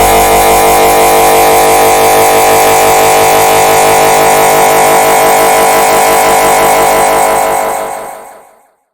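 The red bird laughing meme sound effect layered on itself so many times that it merges into a loud, dense drone with a fast flutter. It fades out near the end.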